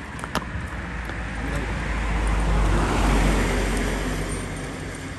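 A road vehicle passing close by: its tyre and engine noise, with a deep rumble underneath, swells to a peak about three seconds in and then fades away.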